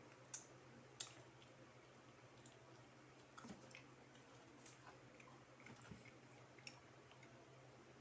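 Quiet eating sounds from chewing flour-battered fried chicken: scattered sharp mouth clicks and small crunches, two louder clicks in the first second, over a faint steady hum.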